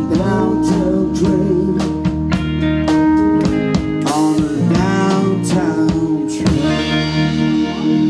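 Live band playing a slow rock ballad: keyboard, electric guitar and drum kit, with a man singing over them.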